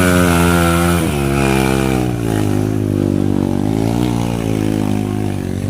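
Trail motorcycle engine revving under throttle. Its note drops about a second in, then rises and falls as the throttle is worked.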